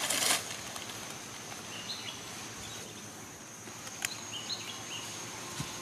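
Outdoor ambience: a steady high insect drone, with a few short bird chirps about two seconds in and again around four to five seconds in. A brief rustle comes at the start and a single click about four seconds in.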